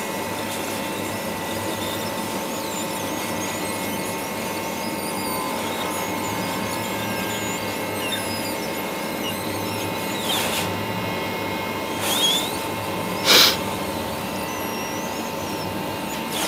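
Hot air rework station blowing steadily, its fan giving a steady hiss with a fixed whine, as diodes are desoldered from a TV panel's circuit board. Three short bursts of noise come late on, the loudest a few seconds before the end.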